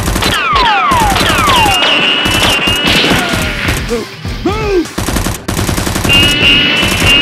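Dubbed-in automatic gunfire sound effects, rapid bursts of shots mixed with repeated falling whistling zips, with a short lull in the middle.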